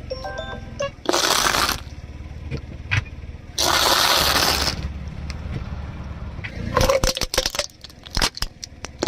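A car tyre rolls over objects and crushes them, over the steady low hum of the car's engine. There are two longer crunching stretches, about one second and about four seconds in, and a quick run of sharp cracks about seven seconds in.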